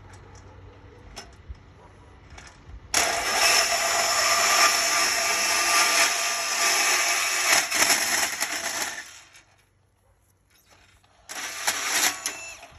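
Portable band saw cutting through an aluminum fence rail. It runs loud for about six seconds, stops, then runs again briefly near the end.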